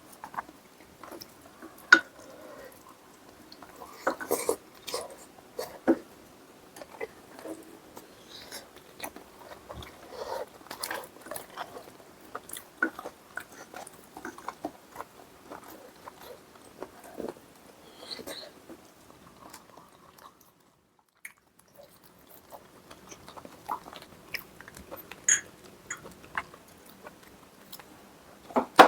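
Close-up chewing and eating sounds of braised spicy chicken stew, with many small irregular clicks and crunches. They stop briefly about two-thirds of the way through.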